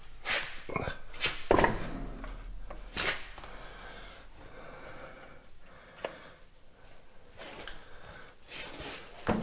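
Several separate knocks and clunks of heavy parts being handled, the loudest about a second and a half in, over a low steady hum.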